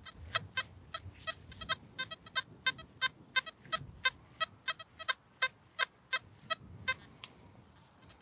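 XP metal detector giving a quick, regular run of short beeps, about three a second, that stops about seven seconds in.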